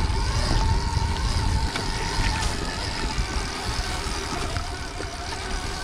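Stark Varg electric dirt bike's motor whining at a steady pitch as it is ridden, over low wind rumble on the microphone that eases about two seconds in.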